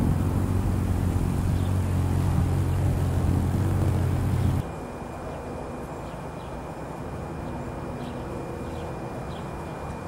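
Ruby-throated hummingbird's wings humming loudly as it hovers right at the microphone. About halfway through, the sound cuts to a much quieter, fainter hum.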